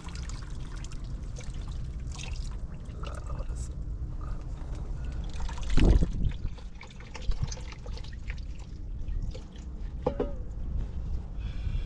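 Water trickling and being poured, with one louder sudden sound about six seconds in.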